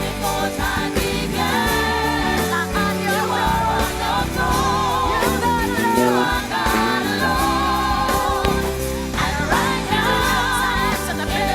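Live gospel worship music: sung vocals with vibrato, possibly backed by a choir, over a steady band accompaniment with bass.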